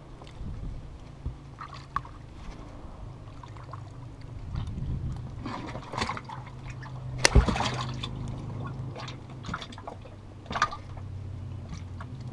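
Water splashing and trickling as an arrowed fish is hauled out of the water into a boat, with a string of knocks and thumps against the boat's hull and deck hatch, the loudest about seven seconds in. A low steady hum runs underneath.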